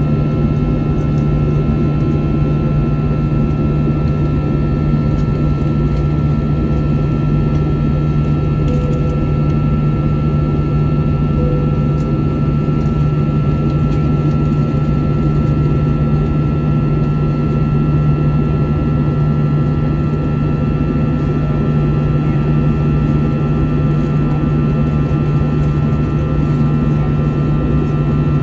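Airbus A321 cabin noise in flight, heard from a window seat: the jet engines and rushing air make a loud, steady drone with a strong low hum and a few faint steady whines above it, unchanging throughout.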